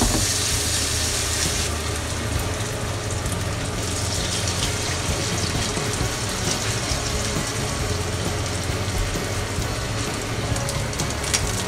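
Bindaetteok (Korean vegetable pancake) batter sizzling as it fries in hot oil in a frying pan, a steady hiss. The sizzle eases a little about two seconds in and grows louder again about four seconds in as another ladleful of batter goes into the oil.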